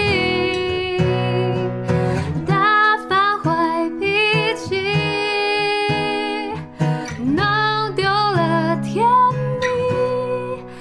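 A woman singing a slow song to her own acoustic guitar accompaniment, holding long notes with a slight waver over plucked chords.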